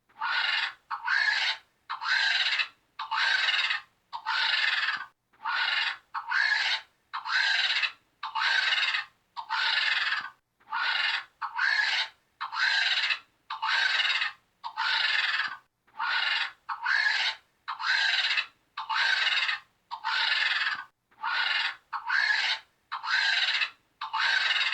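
Vulture hissing: a long run of harsh, raspy hisses, about one a second, some coming in short-then-long pairs.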